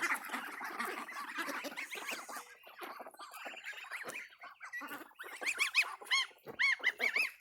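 A flock of ducks quacking and chattering together, with a few separate, louder calls in the last couple of seconds.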